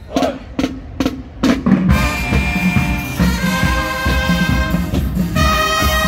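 Show-style marching band starting a tune: a few drum strikes coming quicker and quicker as a lead-in, then the full band enters about two seconds in with loud sustained brass chords over the drums, shifting to new chords twice.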